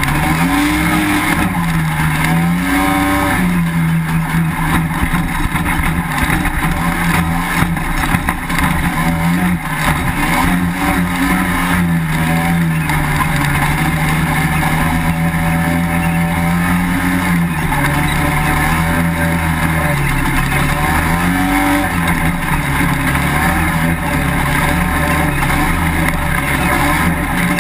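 Yamaha FL400 Pilot dune buggy's engine heard from onboard, running hard across sand. Its pitch rises and falls several times as the throttle is worked.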